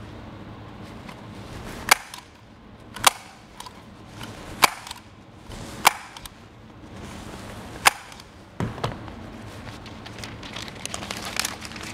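Hand staple gun firing staples one at a time through the foil facing into fiber glass duct board, five sharp snaps about a second or so apart. A dull knock and some crinkling of foil follow near the end.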